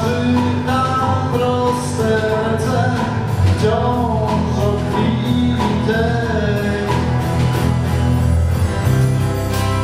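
Live band playing a song: acoustic guitar, bass guitar and drums, with a bending melody line carried over them.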